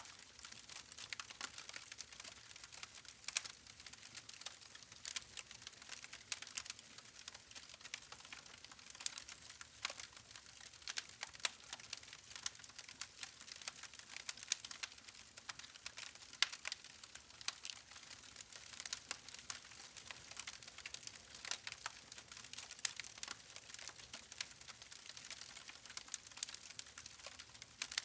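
Wood fire crackling: dense, irregular sharp pops and snaps over a soft steady hiss of burning logs.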